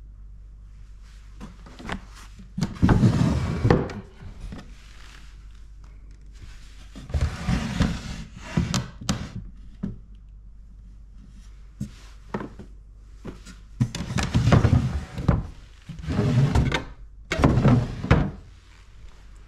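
Handling noises with a wooden ring: about six separate thunks and short rubbing or sliding bursts, each up to about a second long, with sharp knocks between them.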